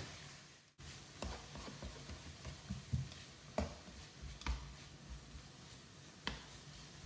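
Plastic slotted spatula scraping and tapping against a non-stick wok as chopped onions, peppers, chorizo and garlic are stirred, with irregular clicks about once a second over a faint frying sizzle.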